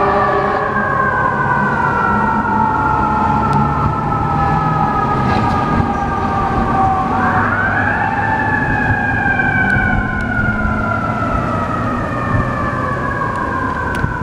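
Fire apparatus sirens sounding as the rigs respond. A mechanical siren winds slowly down, winds up again about seven seconds in, and coasts down once more, over a low steady engine rumble.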